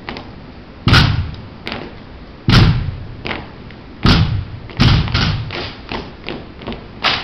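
A rifle drill team handling their drill rifles: four loud, sharp thuds about a second and a half apart, then a quick run of lighter clacks.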